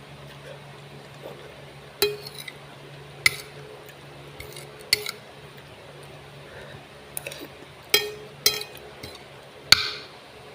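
Dishes and cutlery clinking: about seven sharp, irregular knocks with a short ring after each, over a steady low hum.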